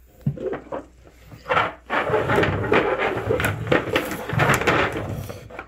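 Two upturned plastic bowls being slid and shuffled around on a dresser top, a run of scraping and knocking that starts about a second and a half in.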